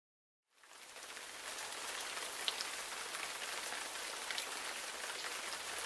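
Filet mignon searing in a stovetop grill pan: a steady sizzle with a few small pops. It fades in after a short moment of silence at the start.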